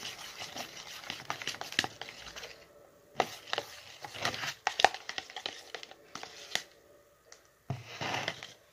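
Thick, sticky homemade egg-yolk slime being worked and stirred, making irregular wet clicks and crackles. The crackles come in short bursts with gaps between them.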